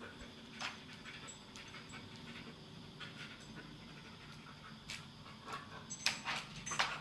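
A pet dog panting, with scattered short sharp sounds that come several in quick succession and loudest near the end.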